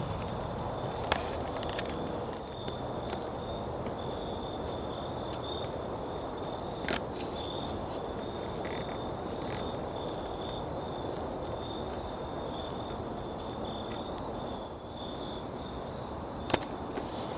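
Night insects trilling steadily at a high pitch, with short higher chirps coming and going in the middle, over a low rustle and a few sharp ticks.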